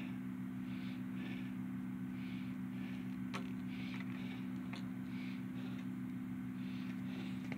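A steady low hum, with soft rustling and two faint clicks as an arrow is handled and nocked on a bowstring.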